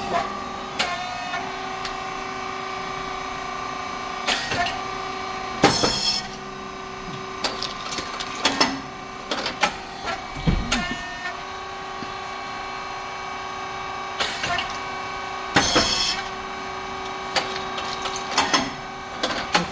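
Rice cake popping machine running a production cycle: a steady hum from its hydraulic motor and pump, with a loud short pop about every ten seconds as the heated moulds open and the rice cakes puff. Lighter clicks and clatter come in between.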